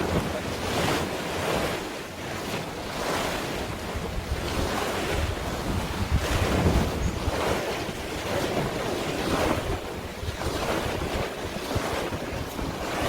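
Wind buffeting the microphone over the wash of waves, a continuous rushing noise that swells and eases every second or two.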